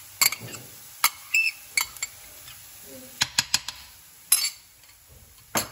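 Irregular clinks and taps of a metal utensil against a stainless steel frying pan as minced garlic is stirred into frying onions, over a faint steady sizzle.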